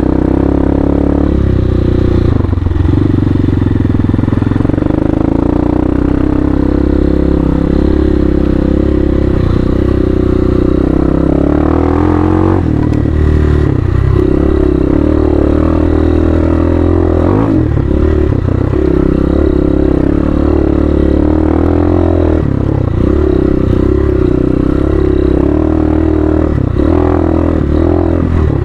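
Hawk 250 dual-sport motorcycle's single-cylinder four-stroke engine running under load on a dirt trail. Its note drops and climbs again every few seconds as the throttle and gears change.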